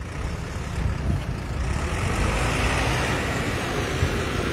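Diesel engine of a JCB wheel loader running close by, a low rumble with a hiss over it, growing louder over the first two seconds and then holding steady.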